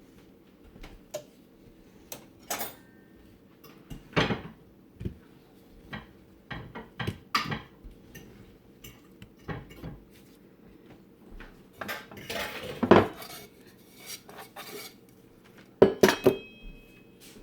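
Kitchen dishes and utensils clinking and clattering: scattered knocks and clicks, a few leaving a short metallic ring, with the loudest clatters about two-thirds of the way in and near the end.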